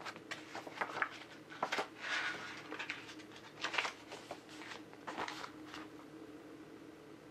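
Pages of a small printed booklet being turned and handled: a string of short paper rustles and flicks.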